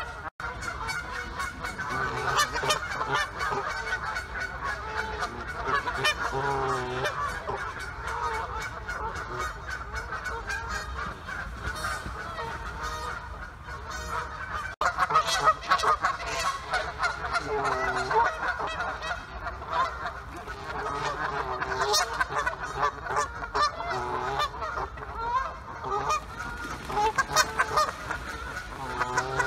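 Many geese honking at once, with overlapping calls running continuously and short sharp clicks scattered among them.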